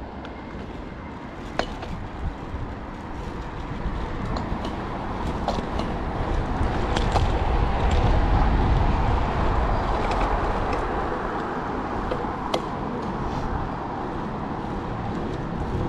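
Wind rushing over a chest-mounted GoPro's microphone and street traffic noise while riding a road bike. The rush builds to its loudest about halfway through, with a few sharp clicks.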